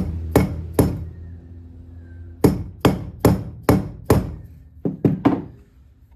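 Soft-faced hammer tapping a KTM 450 EXC engine crankcase to split the two halves: about ten sharp knocks, three quick ones, a pause, five more at an even pace, then two, each with a short ring from the case.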